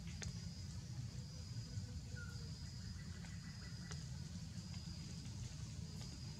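Faint forest ambience: a steady high-pitched insect buzz over a low rumble, with a few sharp clicks.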